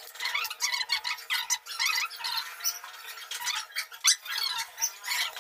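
Irregular scraping and squeaking of stone as a freshly core-drilled hole in a marble floor is worked by hand, with no drill running.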